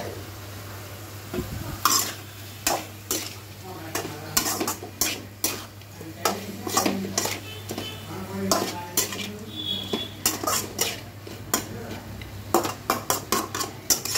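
A flat spatula scraping and knocking against an aluminium kadai as spiced chicken pieces are stirred, in irregular strokes starting about two seconds in, over a light sizzle of the chicken frying.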